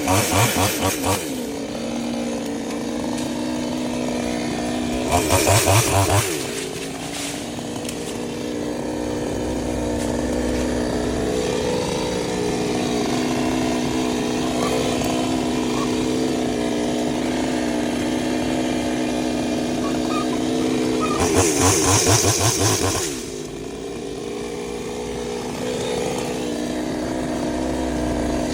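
Chainsaw engine running steadily, revved up hard in three short bursts: near the start, about five seconds in, and again about twenty-one seconds in, each lasting a second or two.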